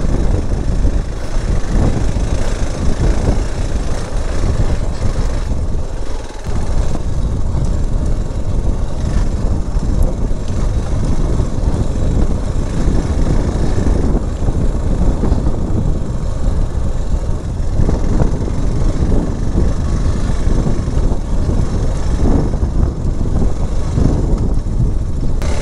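Motorcycle ridden over a rough, potholed dirt road: the engine runs under heavy wind noise on the microphone, with occasional knocks from the bumps.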